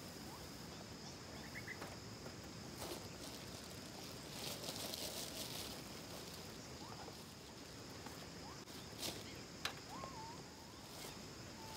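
Outdoor ambience with a steady high insect drone and a few short bird chirps. Over it, people handle camping gear, with a rustle about four to five seconds in and a few sharp clicks later.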